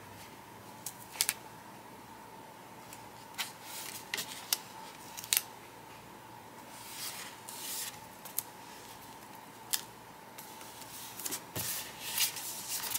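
Washi tape being swatched onto a paper notebook page: scattered sharp clicks and short paper rustles as the tape is handled, pressed down and the page is turned, over a faint steady hum.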